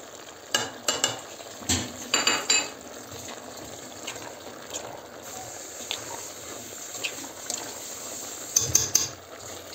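A utensil clinks and scrapes against a stainless steel pot and plate as spices go into white beans and meat in tomato paste, over the low, steady sizzle of the pot cooking. A cluster of clinks comes in the first few seconds and a few more near the end.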